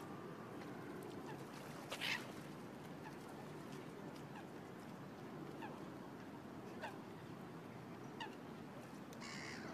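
Water birds calling on a pond: one louder call about two seconds in, then a few faint, short, falling calls, over a steady low background noise.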